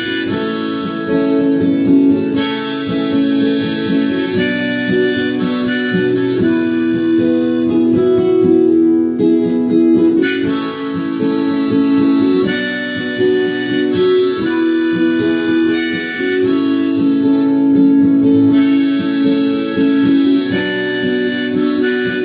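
Harmonica playing the melody over acoustic guitar accompaniment, an instrumental break between sung verses.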